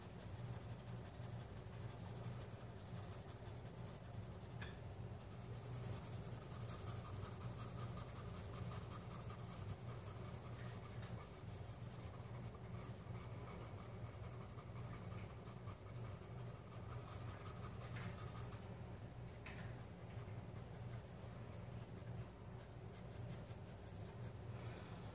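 Faint, steady scratching of a paper blending stump rubbed in repeated strokes over charcoal shading on sketch paper, with a steady low hum underneath.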